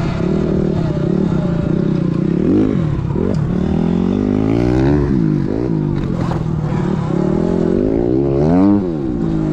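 Sur Ron electric dirt bike's motor and drivetrain whining while riding, the pitch rising and falling with the throttle in several climbs, the highest near the end. A few brief knocks come through about three and six seconds in.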